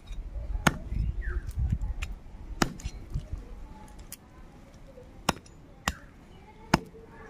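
A large knife chopping raw chicken on a wooden log chopping block: five sharp chops at irregular intervals.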